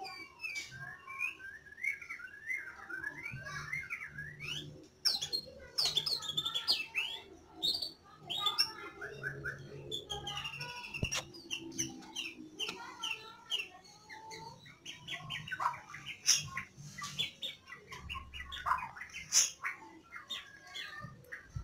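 White-rumped shama calling in an aviary: a rapid, varied run of chirps, whistles and song phrases, with one sharp click about halfway through. The male is becoming agitated toward the female he is being paired with.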